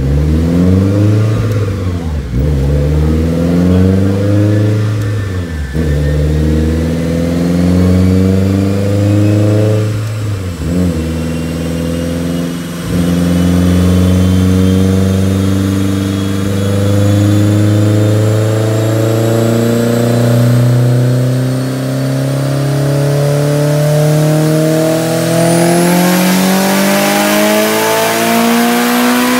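Mitsubishi Eclipse GST's turbocharged 4G63 four-cylinder engine running on a chassis dyno. After a few short revs that fall back, it climbs steadily in pitch under load for about fifteen seconds in a long dyno pull, with a thin high whine rising along with it.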